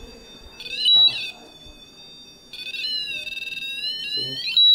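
Electronic alarm tones from a ghost-hunting sensor gadget: high warbling beeps start under a second in, then from about halfway through a continuous warbling tone with rising pitch sweeps. It is loudest in two short peaks, about a second in and at the very end.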